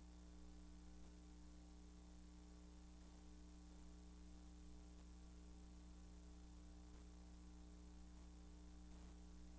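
Near silence: a faint steady electrical hum with low hiss.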